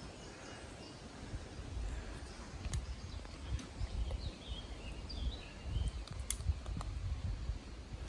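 Rustling and handling noise as carabiners are clipped onto a backpack, with a few sharp metal clicks. A bird chirps faintly about halfway through.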